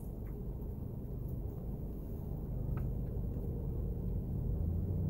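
Steady low rumble of a car idling, heard from inside the cabin, with a few faint clicks of chewing on a bite of cheeseburger.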